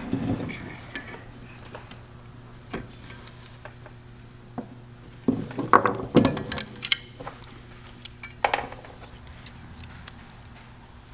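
Small metal carburetor parts clicking and clinking against the aluminium carburetor body and the bench as they are handled and fitted by hand: scattered light clicks, a quick cluster a little past the middle and one more a couple of seconds later, over a steady low hum.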